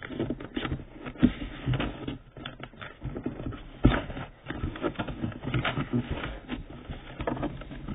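A sheet of paper being folded and creased by hand: irregular rustling and crinkling, with a sharper crackle about four seconds in.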